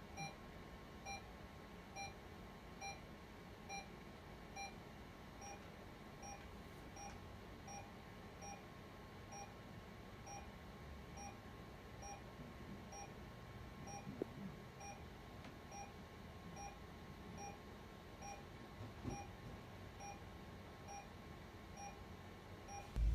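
Patient vital-signs monitor beeping softly at an even pace, a short tone a little faster than once a second, the pulse tone that keeps time with the patient's heartbeat. A faint steady hum lies underneath.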